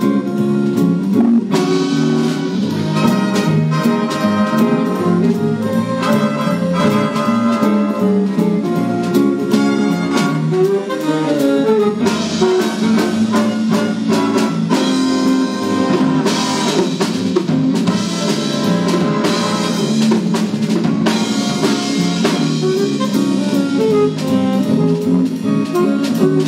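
School jazz big band playing a swing chart live: saxophones and brass over drum kit, bass, electric guitar and keyboard, all playing without a break.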